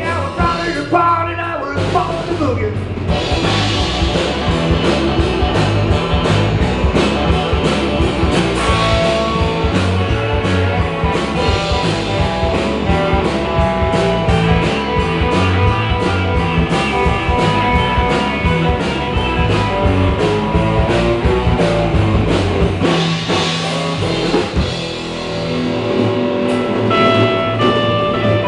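Rock band playing an instrumental break of a boogie rock song: guitar lines over drum kit and bass, with no singing. The band thins out briefly about 25 s in before the full sound returns.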